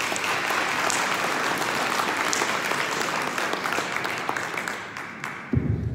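Audience applauding steadily, slowly dying down. A loud low rumble with knocks starts near the end.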